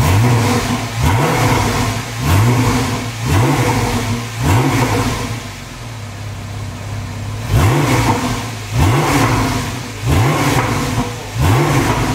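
Porsche 911 Carrera 4S (991.1) 3.8-litre naturally aspirated flat-six, freshly fitted with a Porsche Sports Exhaust, blipped on the throttle about once a second. There are nine short revs with a few seconds of idle in the middle.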